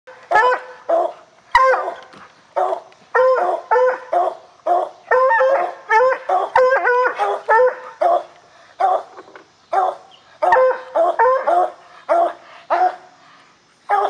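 Hounds baying: short, loud, pitched barks repeated about twice a second, broken by a few brief pauses.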